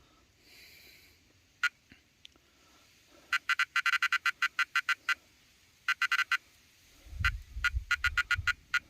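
Carp bite alarm sounding runs of fast, high electronic beeps as a fish pulls line off the rod: a take. Dull knocks come in under the last beeps near the end.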